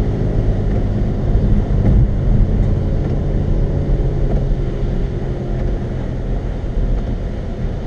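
Car engine and tyre noise on a wet road, heard inside the cabin: a steady low hum that eases off gradually.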